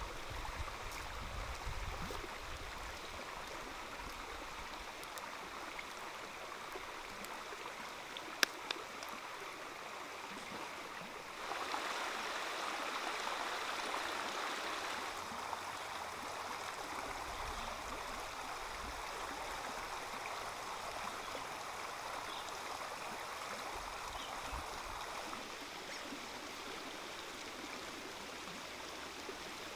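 A shallow stream running over rocks, a steady rush of water that grows louder for a few seconds about a third of the way in, with a single sharp click just before that.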